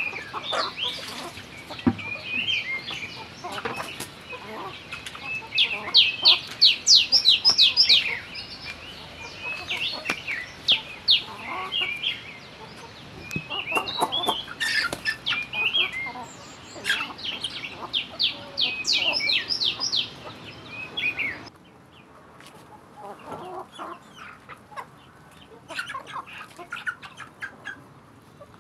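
A flock of chickens clucking and calling while they peck at scattered feed, with runs of quick, high chirps. It goes quieter for the last several seconds.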